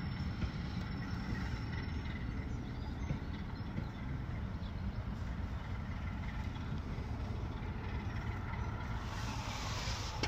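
Diesel locomotive engine running as it hauls a passenger train into a station: a steady low rumble, with a brighter hiss building near the end.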